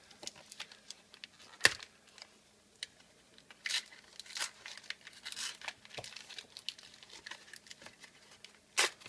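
Plastic-and-cardboard blister packaging of a Pokémon booster pack being crinkled and torn open by hand: scattered crackles and rustles, with a sharp snap about a second and a half in and louder bursts of crinkling around the middle and near the end.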